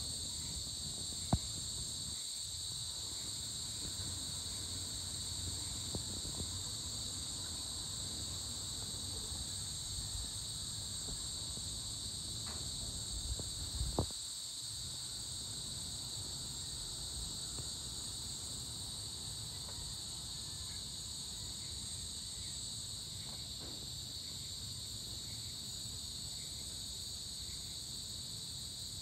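Steady, shrill chorus of insects at dusk, holding several high pitches without a break, over a low rumble. There is a sharp click about a second in and another about halfway through.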